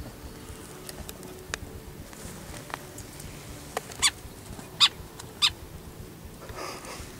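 An animal's short, sharp calls: three loud ones roughly two-thirds of a second apart in the middle, with a few fainter ones before them.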